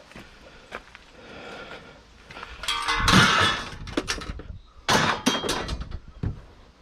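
Crashing clatter of hard objects, loudest about three seconds in and again about five seconds in, with lighter knocks and clinks around them.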